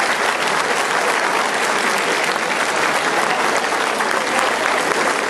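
Audience and people on stage applauding: a steady stretch of many hands clapping.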